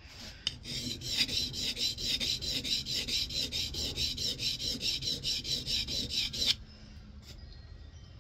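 Steel scrub plane iron with a cambered edge, rubbed quickly back and forth on a Norton oilstone while honing the edge: a steady gritty scraping at about four or five strokes a second that stops abruptly about six and a half seconds in.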